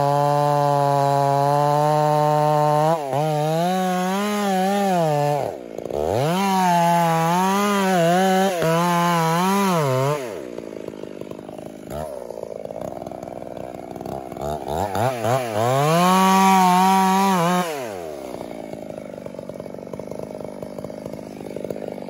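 Two-stroke chainsaw cutting a felling notch into a large tree trunk. It runs steadily under load, then revs up and down repeatedly as the cut goes on. About ten seconds in it drops to a low idle, revs hard again for a couple of seconds, and settles back to idling.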